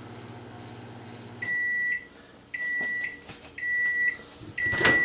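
Microwave oven humming steadily as it heats a cup of water. The hum stops about one and a half seconds in, and then four steady high beeps about a second apart mark the end of the cooking cycle, with a few clicks between them.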